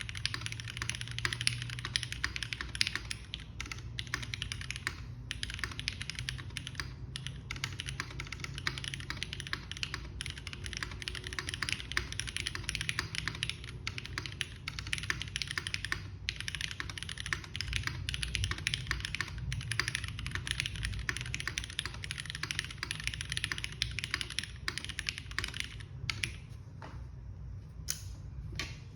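Continuous fast typing on a Geonworks F1-8X mechanical keyboard with lubed Cherry MX Black Hyperglide linear switches on an aluminium leaf-spring plate and GMK Shoko keycaps: a dense run of keystroke clacks with a few brief pauses, slowing to scattered keystrokes near the end.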